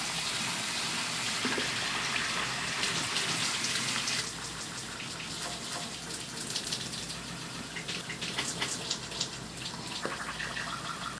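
Shower running, a steady spray of water; about four seconds in it drops quieter and turns to an irregular patter.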